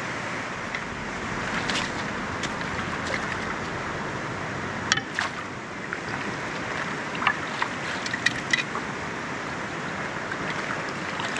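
Steady rush of a clear, rocky stream running through riffles, with several short sharp sounds scattered through it, the loudest about 5 seconds in and a cluster a few seconds later.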